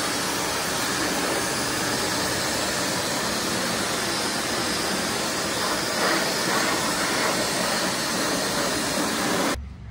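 Pet blower drying a cat's wet fur after its bath, blowing a steady rush of air through its hose, which cuts off suddenly near the end.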